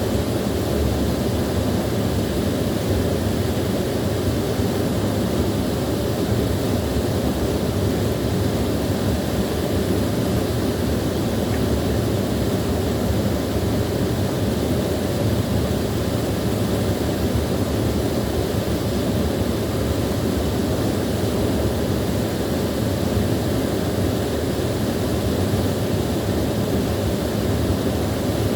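Small waterfall: water pouring and splashing in a steady, unbroken low rush.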